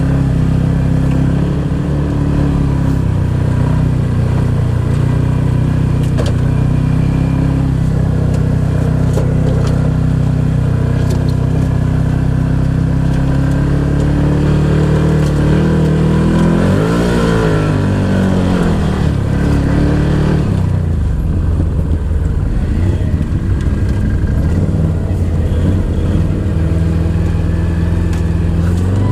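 Off-road vehicle engine running under way at a steady pace, revving up and back down about sixteen seconds in, then running lower and rougher for several seconds before settling back near the end.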